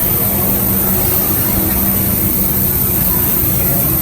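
A steady, low, engine-like hum with faint crowd murmur underneath.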